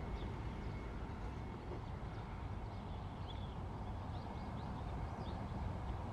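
Outdoor park ambience: a steady low rumble with short, high bird chirps scattered throughout.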